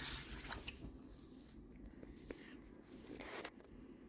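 Faint rustling and a few light clicks of a paper picture book being handled, its pages turned.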